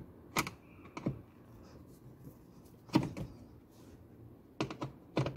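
Sharp plastic clicks and knocks, about seven at irregular intervals, from handling the Nissan Tiida's glovebox and cabin-filter housing trim.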